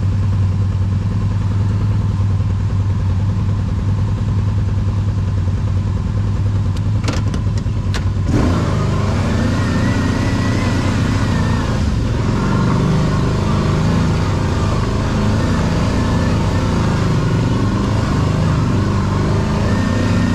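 V-twin ATV engine idling steadily, with a few sharp clicks near the middle; about eight seconds in it picks up and runs under throttle, its pitch rising and falling as the quad moves off along the trail.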